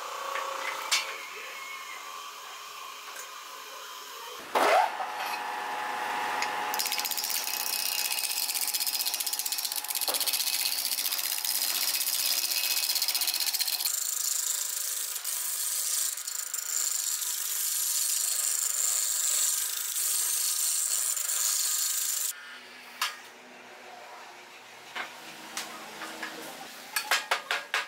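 Wood lathe spinning a log blank while a hand-held gouge cuts it down, a steady high scraping of steel on wood with chips flying, which stops suddenly about 22 seconds in. Near the end come a run of sharp taps.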